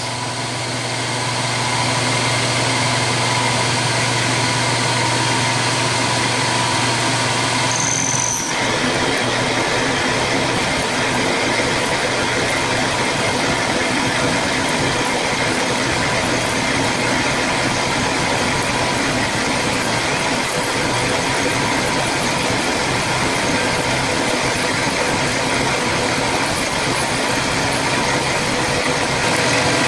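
Vertical milling machine running at 1300 RPM, a 1/4-inch ball end mill cutting a slot in an oiled 303 stainless steel bar: a steady mechanical whir with cutting noise. About eight seconds in, the sound changes abruptly: the low hum drops away into a noisier, fuller running sound.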